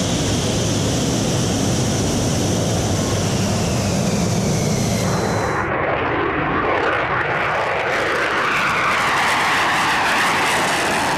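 F-16 jet engine: first the steady whine of the fighter taxiing close by, then, about halfway through, a change to the broad rushing noise of an F-16 taking off and climbing away, growing stronger near the end.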